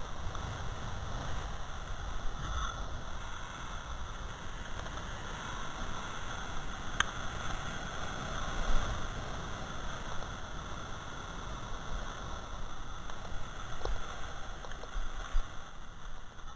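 Water rushing and splashing along the hull of a Fanatic ProWave stand-up paddleboard as it is paddled and glides, steady with a low rumble and a few louder swells. A single sharp click about seven seconds in.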